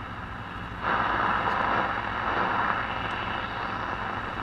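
Zenith G500 Trans-Oceanic tube shortwave radio hissing with static through its speaker as the dial is tuned, over a steady low hum; the static jumps louder about a second in. It has no antenna connected, so it picks up only static.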